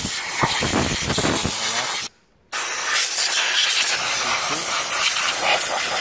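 A compressed-air blow gun blasting air into the opened espresso machine to blow out dust and debris, making a loud steady hiss. It cuts off for about half a second about two seconds in, then starts again.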